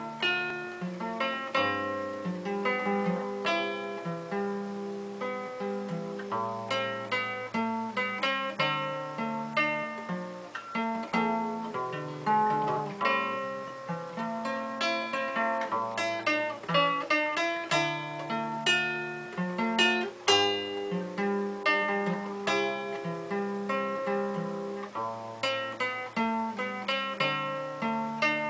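Nylon-string classical guitar played fingerstyle with a capo on, plucked bass notes under a melody.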